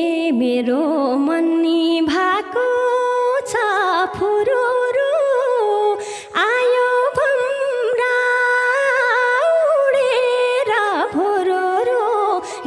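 Nepali lok dohori music: a woman's voice sings a slow, ornamented melodic line with light accompaniment, pausing briefly between phrases.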